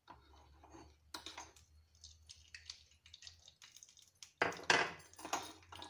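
A metal spoon scraping and knocking against a hot kadai as ghee is spooned into it, with the loudest knocks about four and a half seconds in.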